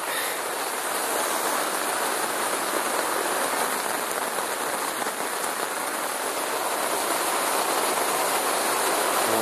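Heavy rain falling steadily on a tent, heard from inside: an even, unbroken hiss of rain on the fabric.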